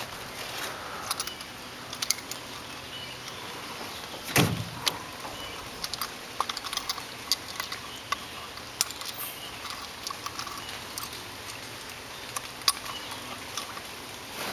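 Handling noises on a boat deck: scattered light clicks and rattles, with one heavier thump about four and a half seconds in.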